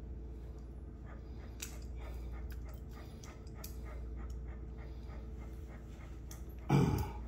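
A large Cane Corso panting during a nail trim, with faint clicks, over a steady background hum. Near the end it gives one short, loud, low vocal grunt.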